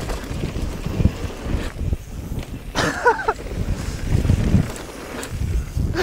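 Wind buffeting a GoPro's microphone over the rumble of a downhill mountain bike riding rough trail at speed, with a brief high-pitched sliding cry or squeal about three seconds in.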